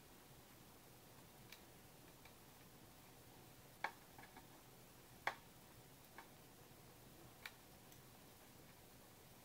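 A few short, sharp clicks at uneven intervals over near-silent room tone; the two loudest come about four and five seconds in.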